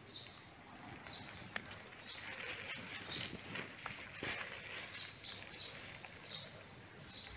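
Small birds chirping: short high chirps recurring about once a second, over faint rustling and light clicks.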